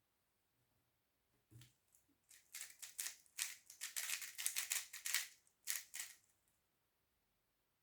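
A 3x3 speedcube being turned quickly by hand: a rapid run of light plastic clicks and clacks that starts about a second and a half in, is densest in the middle and stops about a second before the end.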